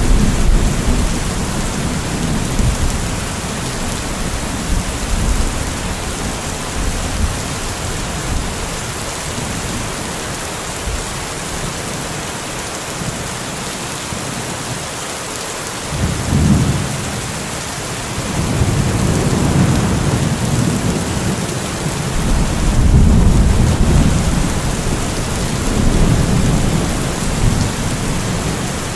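Steady rain hissing, with rolling thunder underneath. The low rumble dies away around the middle, then returns about halfway through as several long rolls that swell and fade.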